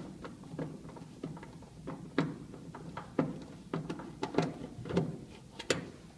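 Irregular clicks and taps of a screwdriver turning the screws that hold a trash can's new lid damper onto the can's base, with the sharpest clicks about two, three, four and five seconds in and near the end.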